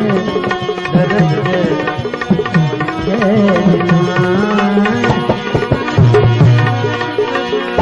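Instrumental interlude of a devotional bhajan: tabla strokes under a melodic instrument playing a winding tune.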